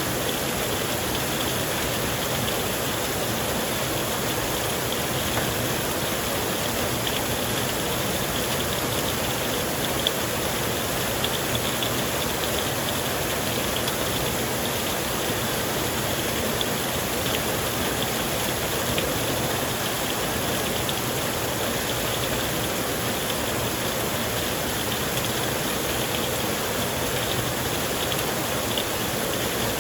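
Heavy rain falling in a steady downpour, with a scatter of small drop ticks.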